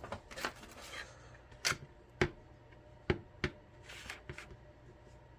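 Handling noise from a lock and small metal tools: about half a dozen sharp clicks and taps at uneven intervals, with a little rubbing in between.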